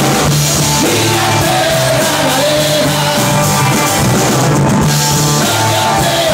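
Live rock band playing: electric guitar and drum kit, with a man singing into a microphone.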